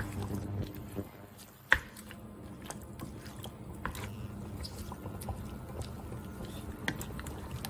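A spatula stirring chicken and mushrooms through a thick sour cream sauce in a frying pan, wet and squelching, with a few sharp knocks of the spatula against the pan, the loudest a little under two seconds in.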